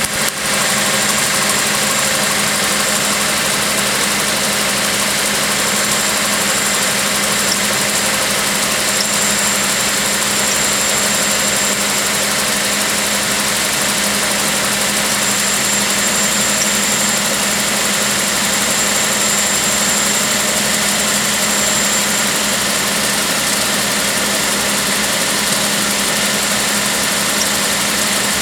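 Honda Life JB1 kei car idling steadily with the air conditioning switched on, making the abnormal noise that appears only with the A/C on. It is a constant hum under the engine noise, with a faint high whine that comes and goes.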